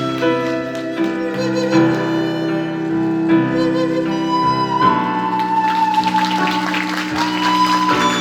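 Instrumental curtain-call music for a stage musical: held chords that change about once a second, with a higher sustained melody coming in about five seconds in.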